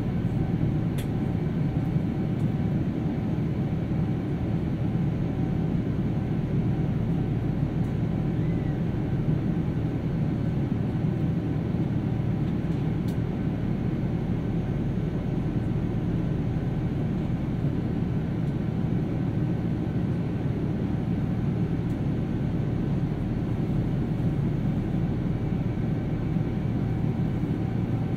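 Cabin noise of a Boeing 787-9 in its climb after takeoff: a steady low rumble of its Rolls-Royce Trent 1000 engines and the rushing air, with a faint even hum above it.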